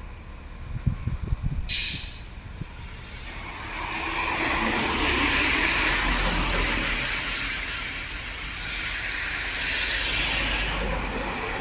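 A train running on the rails, a broad rush of wheel and rail noise with a low rumble that builds from about three seconds in and stays loud. A short, sharp hiss of air comes just before it.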